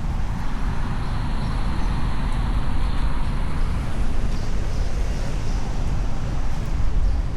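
Steady rumble of a car being driven, mostly low engine and road noise.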